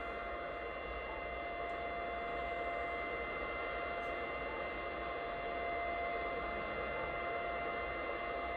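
An unidentified steady tone signal on shortwave near 18.53 MHz, received in AM on a Yaesu FTdx10 transceiver and heard through its speaker. One strong steady tone carries several fainter steady tones above it, over an even band hiss.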